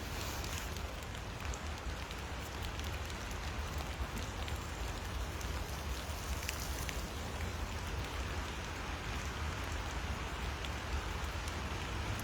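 Steady rain falling, an even hiss with scattered sharp ticks of single drops over a low rumble.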